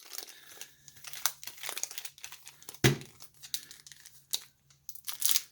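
Foil booster pack wrapper crinkling and tearing as it is handled and opened: a run of small crackles, with one sharper crackle about three seconds in.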